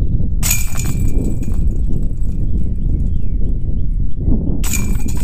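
A putted disc strikes the metal chains of a Dynamic Discs disc golf basket, and the chains jingle and ring for a couple of seconds. A second chain jingle starts near the end. A steady low wind rumble is on the microphone throughout.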